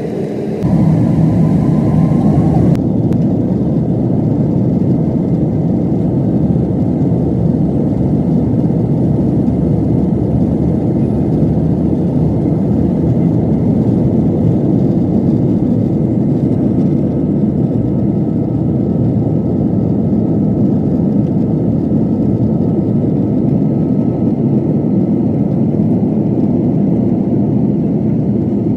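Boeing 777 jet engine and airflow noise heard inside the passenger cabin: a steady, loud, low rumble, with a brief rising whine about a second in.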